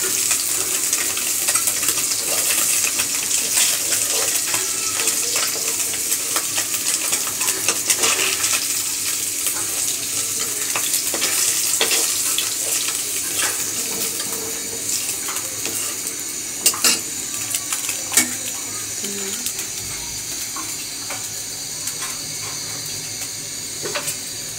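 Chapila fish sizzling in hot oil in a karai (wok) while a metal spatula scrapes and lifts them out, clinking against the pan and a steel bowl. The sizzle eases in the second half, with a few sharp clinks.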